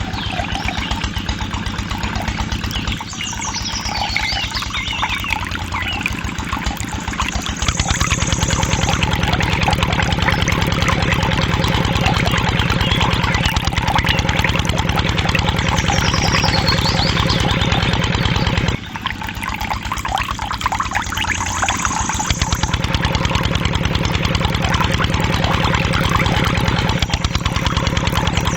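Small engine running with a fast, even beat, stepping up louder about a quarter of the way in, dropping back about two-thirds through and rising again; the same stretch of sound seems to come round twice.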